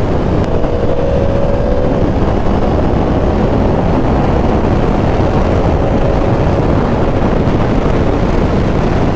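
Steady wind rush over the rider's microphone on a 2023 Yamaha R1 at highway speed, with the bike's engine faint underneath as a thin steady hum.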